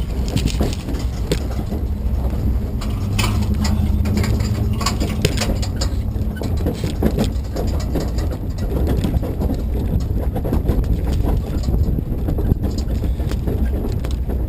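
An engine running at low speed with a steady low rumble, over irregular knocks and rattles. A deeper, steadier drone sets in about three seconds in and eases off a few seconds later.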